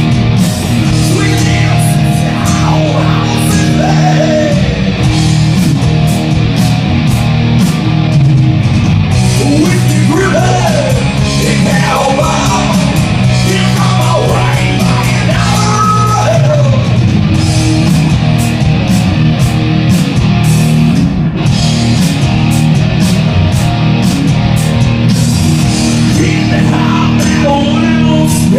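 Live rock band playing loud, with distorted electric guitar, bass and drums with cymbal hits, and a singer's voice coming in and out over the top. It is heard through a phone's microphone in a small bar.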